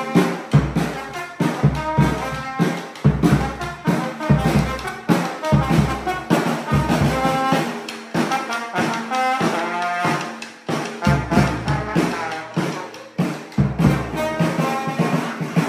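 A trombone plays a melody over a steady beat on a bass drum, in a small live band rehearsal.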